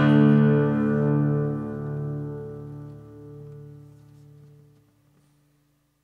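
Background music ending on a held guitar chord that fades away to silence about five seconds in.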